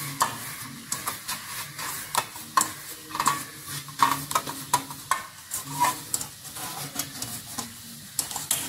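A hand rubbing ghee around the inside of a stainless steel plate: repeated swishing strokes with small, irregular clicks and knocks on the metal, over a faint steady hum.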